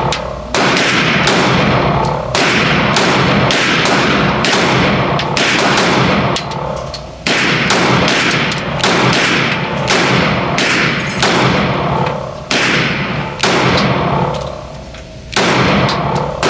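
Pistol shots from a Glock 32 (.357 SIG) being fired in steady succession, about one shot a second, each loud crack followed by a long echoing decay.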